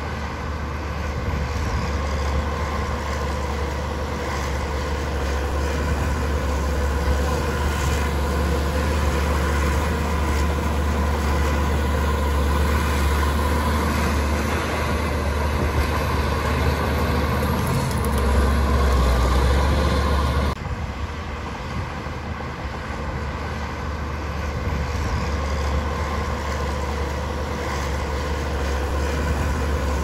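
Heavy diesel construction machinery running steadily, with a deep engine drone under the clatter and noise of work. The sound drops and changes abruptly about two-thirds of the way through.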